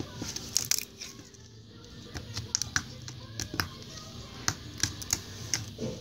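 Purple glitter slime being squeezed and poked by fingers on a wooden table, giving scattered sticky clicks and pops.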